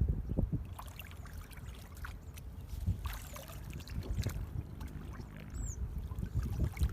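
Water sloshing and splashing in uneven surges, with scattered small clicks. A short high chirp comes about five and a half seconds in.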